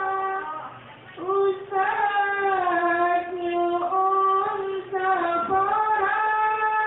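A high young female voice singing a sholawat, an Islamic devotional song, in long held notes that slide and curl between pitches, with a brief pause about a second in.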